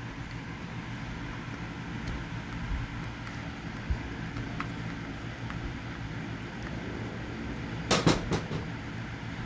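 Steady low hum with a few faint clicks, then a short burst of sharp metallic clicks about eight seconds in, from screws being driven back into the washer's switch cover.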